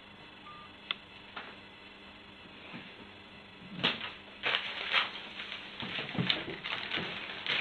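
Crinkling of plastic cellophane wrapping around a flower bouquet as it is picked up and handled, starting about four seconds in with irregular crackles. Before that, two faint clicks about a second in.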